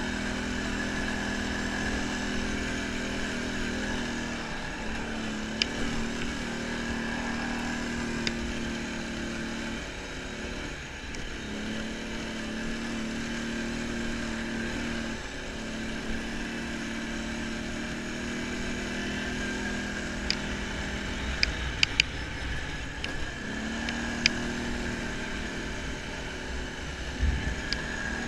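ATV engine running steadily under way on a gravel trail, its note dropping away and picking back up a few times with throttle changes. A few sharp clicks and ticks cut through it.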